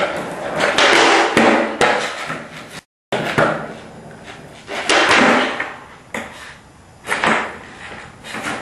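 Skateboard rolling and clacking on a hard floor: several swells of wheel noise with knocks of the board, and a brief dropout about three seconds in.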